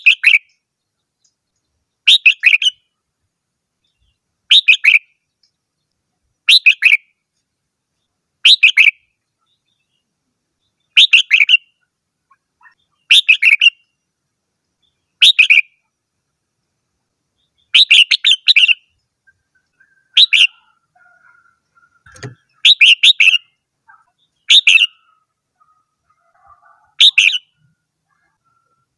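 Red-whiskered bulbul singing: a short, bright whistled phrase repeated about every two seconds. One dull knock comes partway through.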